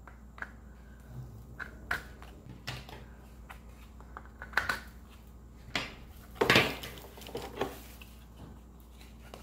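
Hard plastic clicking and knocking as the white plastic folding legs of an artificial Christmas tree are pushed into place on its lower section: a string of separate clicks, the loudest a little past halfway.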